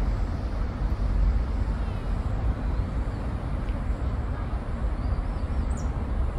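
Steady low outdoor rumble with no single clear source, and a few faint high chirps near the end.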